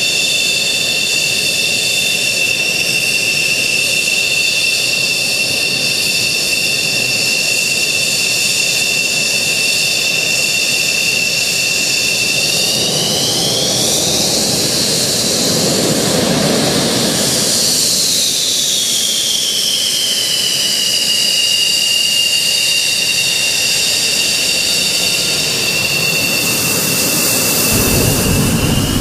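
MiG-29 fighter's twin Klimov RD-33 turbofans whining at taxi power. The whine rises in pitch about twelve seconds in, a loud rush of jet exhaust follows as the aircraft passes close by, and then the whine falls back in pitch.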